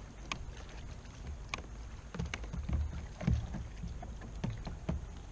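Scattered clicks and knocks of gear being handled and fitted into a mount on a plastic fishing kayak, with a few louder low thumps in the second half, over a steady low rumble.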